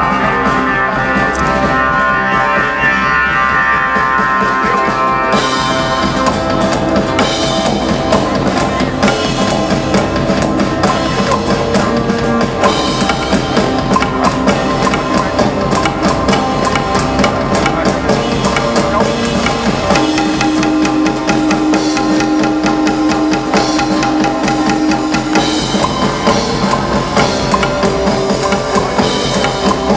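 Live band music: sustained ringing tones open it, then a drum kit comes in about five seconds in and keeps a steady beat under the melody.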